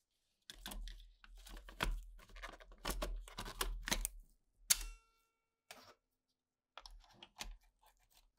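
Irregular clattering knocks and scraping of metal against hard plastic as a tape recorder's metal chassis is seated in its plastic case. A sharp click about halfway through rings briefly, and a few softer knocks come near the end.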